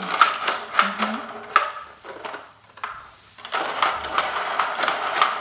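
Plastic plunger-driven toy car spinner: a run of sharp plastic clicks as the plunger is worked, then, about three and a half seconds in, a steady whirring rattle as the toy car spins around the small plastic disc.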